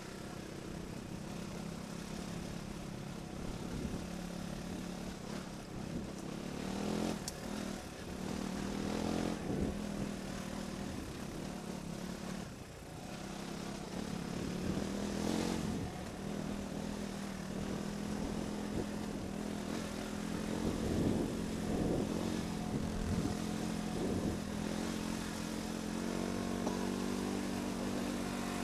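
Off-road motorcycle engine running steadily while riding, its note shifting a little with the throttle and rising near the end. A few sharp knocks break in along the way.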